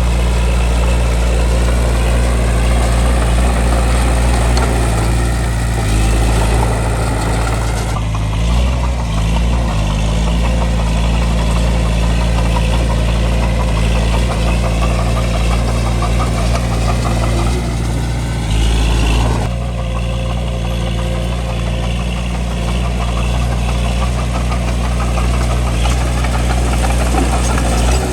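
Bulldozer's diesel engine running steadily under load as it pushes dirt. The engine note shifts about a quarter of the way in and again about two thirds of the way in.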